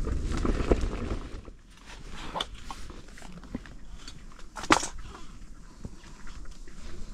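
Handling noise: rustling for the first second and a half, then scattered light clicks and knocks, with one sharp click a little past halfway.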